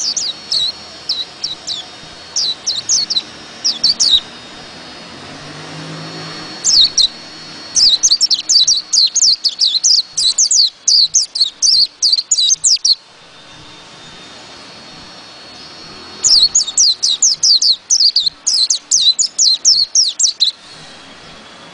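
Caged white-eye (pleci) singing its long rolling song (ngerol): rapid runs of high, thin chirps. They come in three bursts, a short one at the start and two longer runs of about four to six seconds each, with pauses between.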